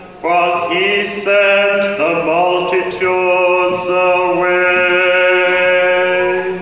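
Orthodox liturgical chant sung in long held notes that move in steps, the last note sustained for a few seconds and stopping near the end.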